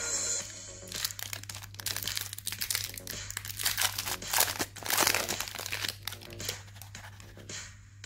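Foil wrapper of a Kinder Cards wafer crinkling and tearing open in the hands. The crinkles come in clusters, loudest about four to five seconds in, and thin out near the end.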